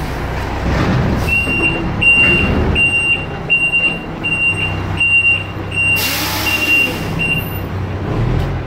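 Garbage truck's reversing alarm beeping about nine times at an even pace over its running diesel engine, with a loud burst of air hiss, like an air brake releasing, about six seconds in.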